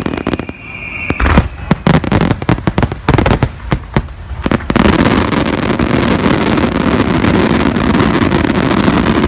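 Fireworks going off in quick succession: many sharp bangs and cracks, with a thin whistling tone that stops about a second in. About halfway through, the separate cracks merge into a dense, steady crackle.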